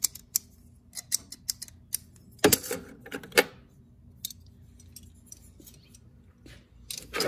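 Metal hand tools clinking and rattling as they are picked up and handled over an open steel tool-chest drawer, with a louder clatter about two and a half seconds in.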